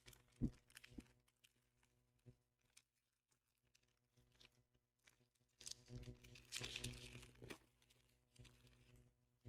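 Faint tearing and crinkling of a foil Pokémon booster pack wrapper being opened and handled, with a longer stretch of rustling in the second half. A single sharp knock about half a second in.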